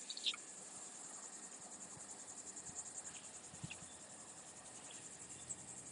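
Insects chirring steadily in a high, fast, even pulse, with a brief soft noise near the start.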